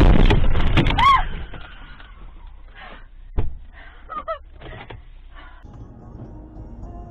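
Car collision heard from inside the car: a loud crash of impact and crunching that lasts about a second, with a high wavering cry falling away about a second in. Then scattered knocks and rattles follow, with one sharp knock partway through, and the sound settles into a steady low road rumble near the end.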